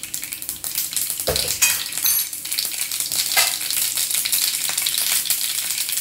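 Mustard seeds sizzling in hot coconut oil in a frying pan, with a rapid crackle of small pops as the seeds begin to splutter, the sign that the oil is hot enough for tempering.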